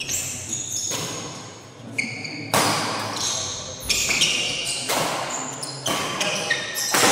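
Badminton rackets striking a shuttlecock back and forth in a fast doubles rally, with about eight sharp smacks roughly a second apart that echo in a large hall, and short high squeaks of shoes on the court between hits.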